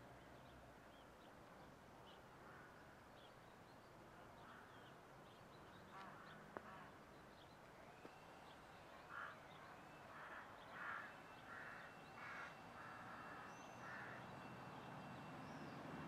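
A run of about six harsh caws in the second half, with small birds chirping, all faint over a low steady hum from the distant SM42 shunting locomotive's a8C22 diesel engine idling.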